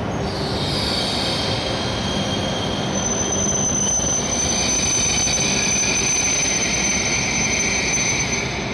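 Hokuriku Shinkansen E7/W7-series train moving slowly along the platform, its wheels squealing with high steady tones over a rolling rumble. A second, lower squeal joins about six seconds in.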